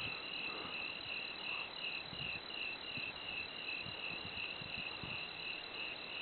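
A cricket chirping in an even, high-pitched rhythm of about three chirps a second, with a few faint low bumps around the middle.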